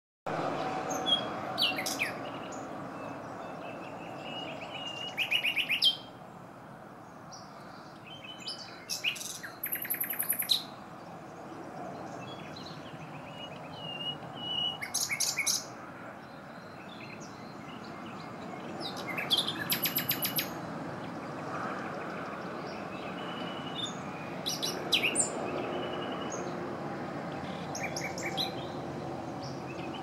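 Male common nightingale (Luscinia megarhynchos) singing: separate song phrases about every four seconds, each a fast run of repeated notes, some ending in high whistles, with short pauses between them.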